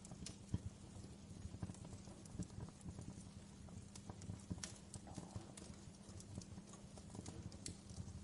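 Wood fire crackling in a fireplace: irregular snaps and pops over a low, steady rumble, with one sharper pop about half a second in.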